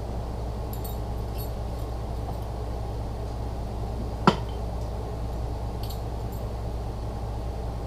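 Small metal transfer-case parts clinking as they are handled, with faint light ticks and one sharp clink about four seconds in, over a steady low hum.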